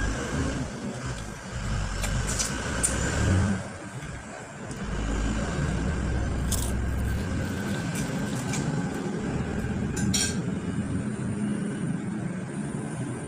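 Steady low rumbling background noise with a few short clicks scattered through it; the rumble dips briefly about four seconds in.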